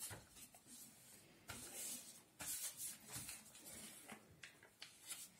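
Faint rustling and creasing of a square of paper being folded and pressed flat by hand, in a few short, soft bursts.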